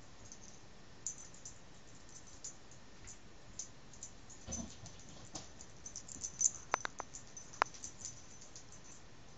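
Small dog moving about on carpet: scattered light clicks and faint tinkling ticks, growing busier about halfway through, with a few sharper clicks near the end.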